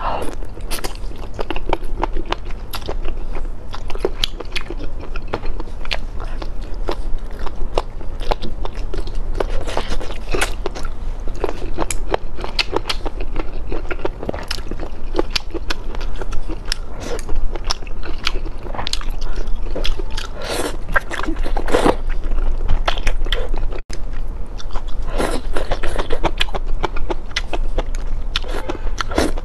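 Close-miked mukbang eating: chewing and slurping noodles and soft hotpot foods, a dense run of short wet mouth clicks and smacks with a few longer, fuller slurps.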